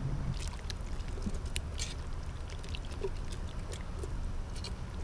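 Metal utensil stirring thick gumbo in a cast-iron Dutch oven: wet sloshing with scattered small clicks and ticks of metal on the pot, over a low steady rumble.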